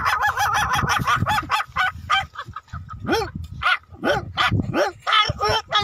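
A man imitating small puppies with his voice: a quick run of short, high yips, then a few longer whimpers that rise and fall.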